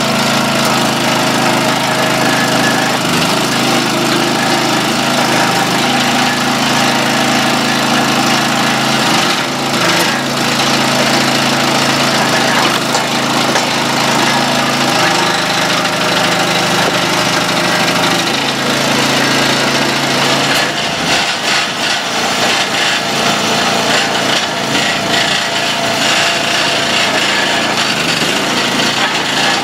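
Small gas engine of a 25-ton hydraulic log splitter running steadily, its note stepping down and back up several times, with the creaking and cracking of black locust rounds splitting, loudest about ten seconds in and through the last third.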